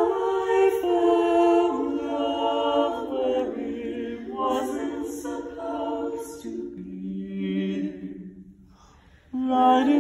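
Small a cappella group of men's and women's voices singing in close harmony without instruments, holding chords that change every second or two. The singing breaks off for about a second near the end, then comes back in loudly.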